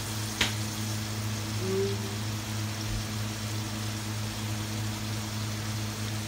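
Sea cucumber and garlic frying in oil in a wok, a steady sizzle over a steady low hum, with one sharp click about half a second in.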